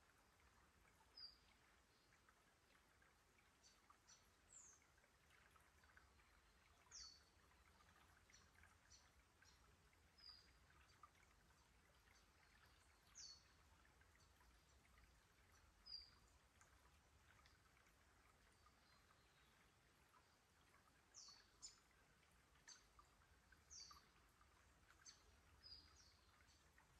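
Faint trickle of a shallow rocky creek with short, high bird chirps every few seconds, about a dozen in all.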